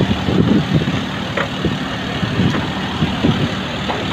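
Road traffic with a truck engine idling, a steady hum under passing vehicles.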